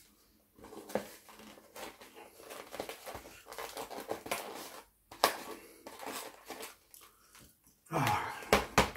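Polystyrene foam takeaway box being handled and its lid pressed shut: crinkling, squeaky foam rubbing and creaking. There is a sharp snap about five seconds in, and a louder falling sound near the end.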